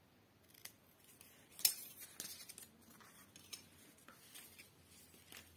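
Scissors snipping through red craft paper: a handful of short, sharp snips and clicks, the loudest about a second and a half in, with softer paper handling sounds in between.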